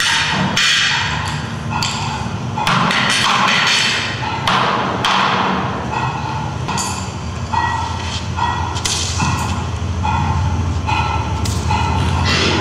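A run of irregular thuds and knocks, with a low hum that grows stronger near the end.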